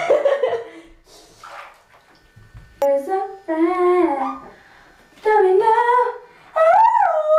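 A girl singing long wordless notes that slide up and down in pitch, in three phrases beginning about three seconds in.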